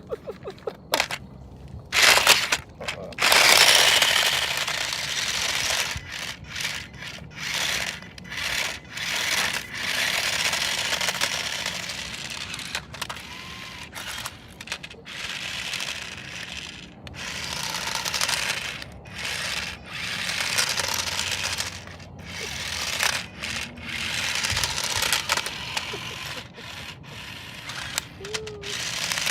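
Remote-control toy snake moving across a surface, its plastic body segments scraping and rattling, in irregular stop-start spells of rough noise.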